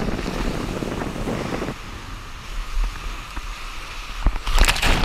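Sea surf washing and rushing, with wind rumbling on the microphone; the water gets louder near the end.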